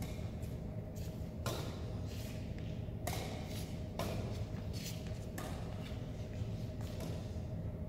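Badminton rackets hitting a shuttlecock back and forth in a rally: sharp hits every one to one and a half seconds, over a steady low hum.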